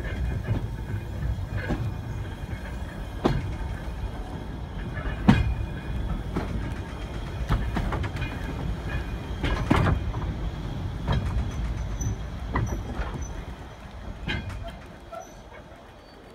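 Rumble and rattle of an LMS brake van running along jointed track, with a sharp knock from the wheels every second or two. The noise dies down near the end as the train slows.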